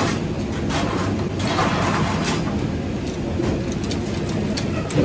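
Steady mechanical rumble of an airport bag room's baggage conveyor system, with several short knocks and clatters over it.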